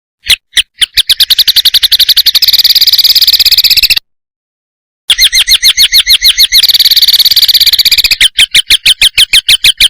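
Songbird singing a rapid-fire 'tembakan' phrase: high, machine-gun-fast repeated notes, well over ten a second, in two long runs with a break of about a second between them, the notes spacing out a little near the end.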